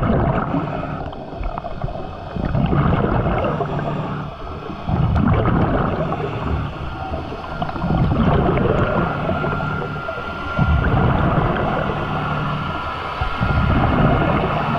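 Underwater recording of a motorboat's engine and propeller approaching at speed from a distance, heard as a steady hum with a faint whine. A diver's exhaled bubbles gurgle in surges every two to three seconds.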